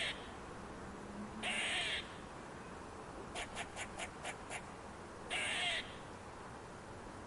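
Squirrel calling: a quick run of about six short, sharp chucks between two harsh, raspy calls about half a second long.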